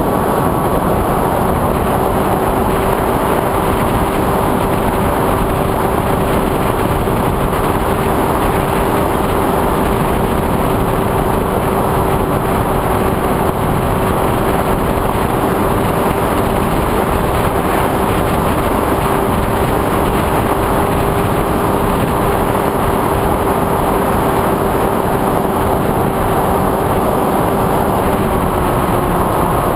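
FPV quadcopter's motors and propellers running with a steady whine over a constant rushing noise, the pitch holding nearly level and easing down slightly near the end.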